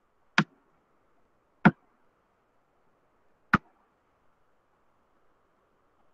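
Three sharp, short knocks, about a second and a half and then two seconds apart, over faint steady hiss.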